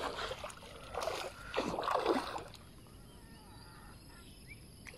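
Water splashing at the surface as a lure is popped through it, three short splashy bursts in the first two and a half seconds, then only faint water sounds.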